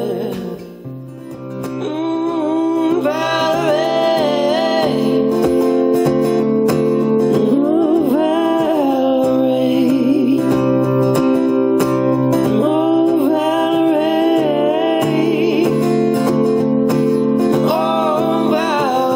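Music: a song with strummed acoustic guitar under a gliding melody line without clear words.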